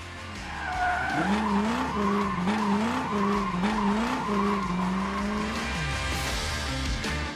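Race car engine sound effect revving up through the gears, its pitch climbing and dropping back several times, then a tyre screech near the end.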